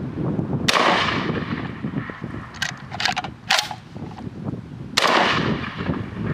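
Two shots from a UTAS XTR-12 12-gauge box-magazine shotgun, about four seconds apart, each with a ringing tail, and a few short sharp clacks between them. It is being fed light loads, which the shooter says don't reliably cycle its action.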